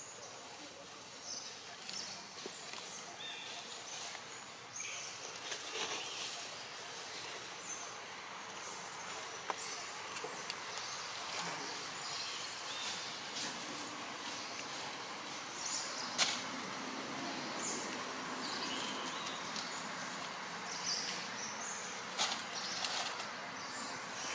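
Outdoor ambience in leaf litter: scattered rustles and small clicks of dry leaves as macaques pick through them. Faint, short high chirps come and go, and there is a sharp click about two-thirds of the way through.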